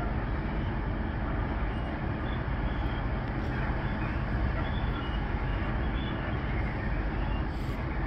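Long freight train of loaded hopper wagons rolling past, a steady rumble of wheels on rail without pause.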